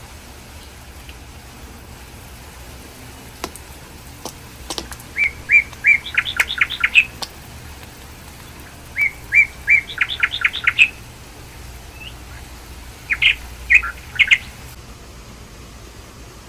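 A bird singing: two short phrases a few seconds apart, each a few repeated notes that quicken into a fast run of higher notes, then a few single chirps near the end.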